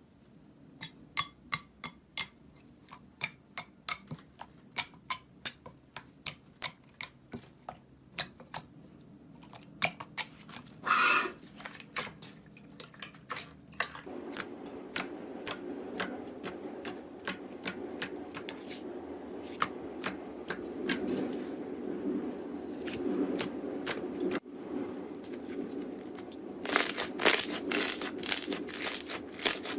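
Slime being pressed and poked, giving sharp clicking pops, at first about two a second and later faster, with dense crackling near the end.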